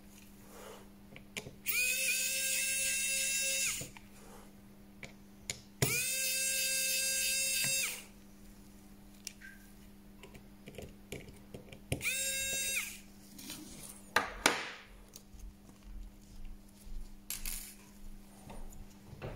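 A small electric tool motor whirring in three bursts, the first two about two seconds long and the last under a second. Each rises in pitch as it spins up, then holds steady. Light clicks and taps come in between, over a steady low hum.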